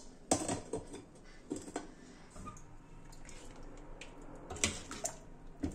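Short knocks and clinks of kitchenware: a rice paddle and rice-cooker lid against a steel plate, then a steel ladle stirring in a steel pressure cooker. Several in the first two seconds and a couple more near the end.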